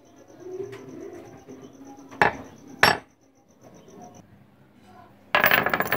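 A flat steel blade set down on a wooden bench with two sharp metallic knocks, the second ringing briefly. Near the end a heap of rusty steel chain drops onto the bench with a loud jangling clatter.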